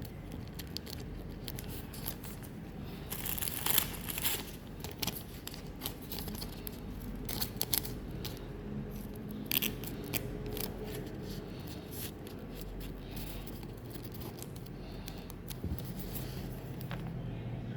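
Trading-card booster packs and cards being handled and opened: a run of short crinkles, clicks and scrapes, busiest about three to four seconds in and again around ten seconds in.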